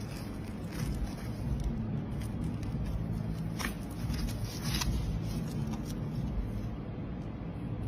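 Sparse crackling clicks, the clearest about a second in and around four to five seconds in, over a steady low hum.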